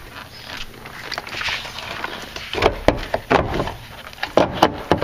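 Steel lower door hinge of a Mercury Grand Marquis rear door being worked loose by hand: soft handling noise, then from about halfway a quick run of sharp metal clicks and knocks as the hinge strikes the door and pillar while it comes free.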